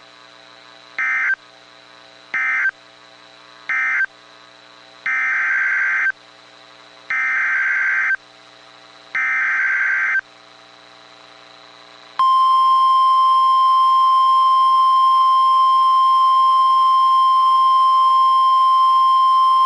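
NOAA Weather Radio EAS/SAME data bursts. First come three short screechy end-of-message bursts, then three longer header bursts about two seconds apart. About twelve seconds in, the loud, steady single-pitched warning alarm tone begins, announcing the next severe thunderstorm warning.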